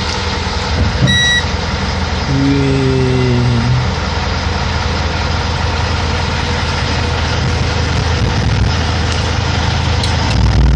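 Diesel engine of the Astros II MK 6 launcher's 6x6 truck running, heard from inside the cab, with a short high electronic beep about a second in. The low engine rumble grows louder near the end.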